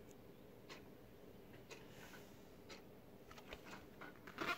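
Faint, even ticking about once a second in a quiet room. Near the end come a few louder soft handling sounds as a cardboard board book's page is turned.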